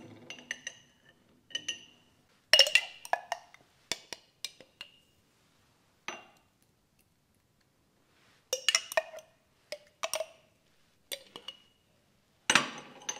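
Stainless steel measuring spoon clinking against a glass jar and glass tumblers as pulp is scooped and tipped out: short clusters of ringing clinks with pauses between, the loudest about two and a half seconds in and near the end.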